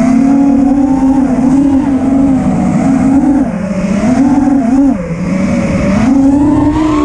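FPV racing quadcopter's brushless motors (Lumenier 2407, 2500kv) and propellers whining, the pitch swooping up and down with throttle, climbing near the end.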